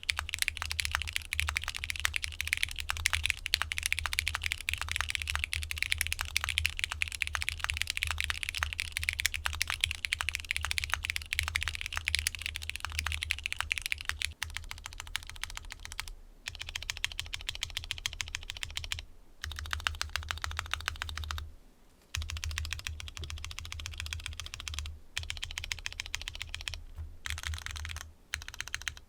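Continuous fast typing on a Mode Envoy mechanical keyboard (aluminium case, FR4 plate) fitted with lubed Cherry MX2A Red linear switches: rapid keystroke clacks with some scratch still in the sound. There are a few short pauses in the typing in the second half.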